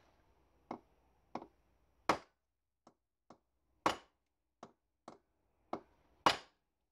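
Hammer striking a metal tube held against the main jet of a Zenith-Stromberg 175CD2SE carburettor, driving the jet out of the carburettor body. About ten blows: two or three lighter taps, then a harder strike, three times over.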